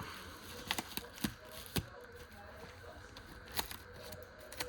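Small multi-tool scissors of an Oknife OKS2 cutting through packaging: several separate sharp snips with quiet rustling between them.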